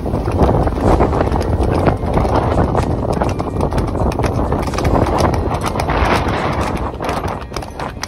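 Hooves of several horses clip-clopping on an asphalt lane, a quick, uneven stream of strikes.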